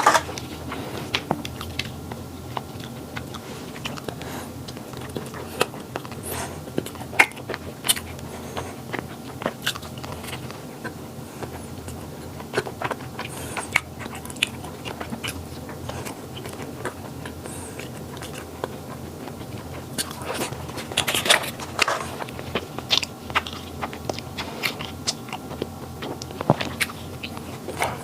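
A person biting into and chewing flaky pastry such as egg tarts or egg yolk pastries, with many short crisp crunches, thickest about two-thirds of the way through and again near the end.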